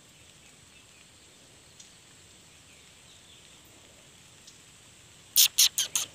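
Faint steady outdoor background. About five seconds in comes a quick run of loud, short 'pish-pish' hissing calls, a person calling a cat.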